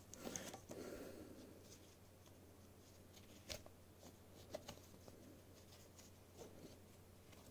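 Near silence with faint handling sounds: a light rustle of a nylon watch strap being handled, then a few small clicks, the sharpest about three and a half seconds in.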